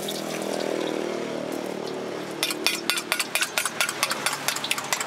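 Spoon beating an egg in a small metal bowl: quick, irregular clinks of metal on metal starting about halfway through, over a steady mechanical hum.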